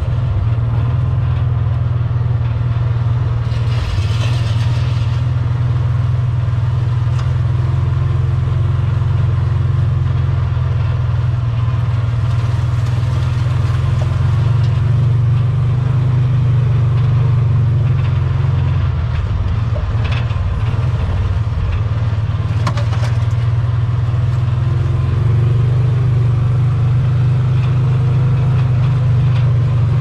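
A motor vehicle's engine running steadily while under way, a loud low drone with a few short knocks and rattles.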